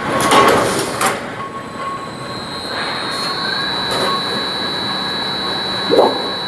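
Factory machinery in an aluminium workshop running with a steady high-pitched whine that sets in about two and a half seconds in, with sharp metallic knocks near the start and a few more later on.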